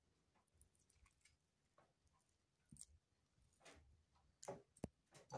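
Near silence broken by a few faint, scattered ticks and soft wet sounds: hands pulling the backbones out of fresh anchovies.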